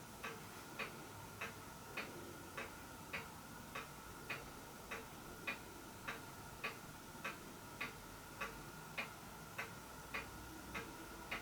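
Faint, evenly spaced ticking, a little under two ticks a second, over a faint steady tone.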